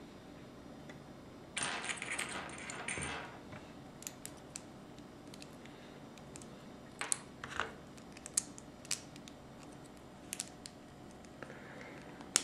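LEGO plastic pieces being handled: a burst of plastic clattering and rustling for about a second and a half near the start, then scattered sharp clicks and taps as small bricks and plates are picked up and pressed together.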